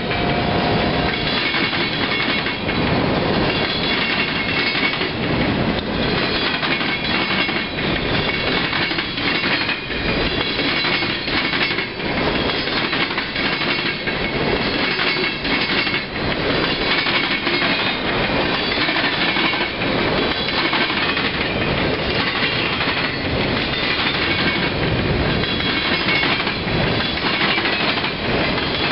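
Freight cars of a passing train (boxcars, bulkhead flatcars and tank cars) rolling steadily by at close range, their wheels clacking over the rail joints over a continuous rolling rumble.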